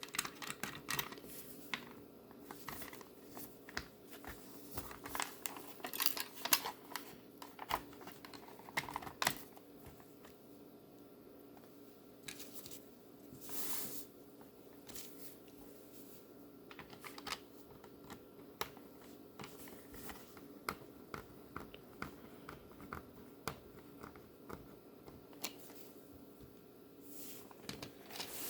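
Small, irregular plastic clicks, taps and rustles from hands handling a VHS cassette shell and its tape reels while a loose reel of magnetic tape is fitted in, over a faint steady hum.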